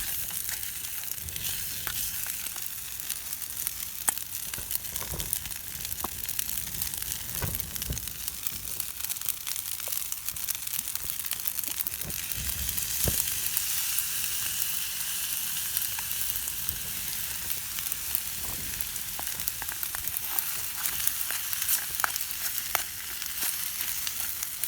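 Vegetables sizzling as they fry in a pot on a camping stove, a steady hiss with occasional clicks and knocks.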